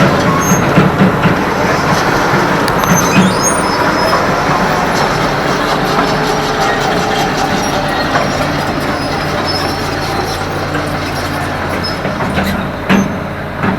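Tracked hydraulic excavator's diesel engine running steadily while it works, with scattered brief high metallic squeaks and a thump near the end.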